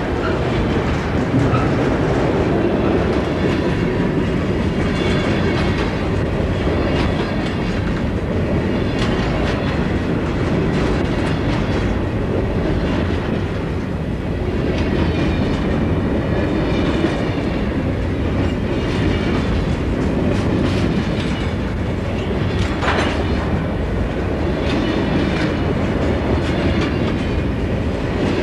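Freight cars of a long train rolling past close by: a steady rumble of steel wheels on rail with repeated clickety-clack over the joints, and faint high wheel squeal at times as the cars take the curve.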